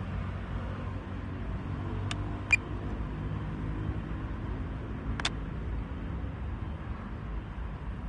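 Steady low rumble with a faint hum underneath, broken by three sharp clicks, two close together about two seconds in and one about five seconds in.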